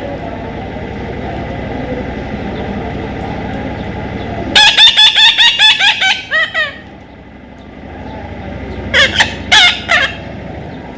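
A parrot calling: a fast run of about eight loud, shrill squawks a little before halfway, then three more near the end, over a steady low rumble.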